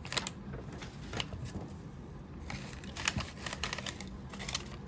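Packaging crinkling and rustling as items are handled out of a subscription box, in short irregular bursts with small clicks, getting busier about halfway through.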